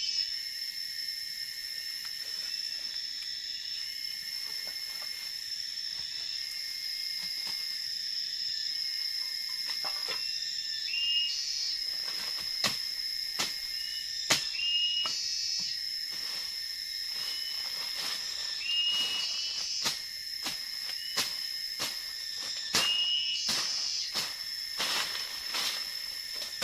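Forest insects keeping up a steady high-pitched drone, with a short rising call repeating every few seconds. Scattered crackles and snaps of footsteps through dry leaf litter and undergrowth, more frequent in the second half.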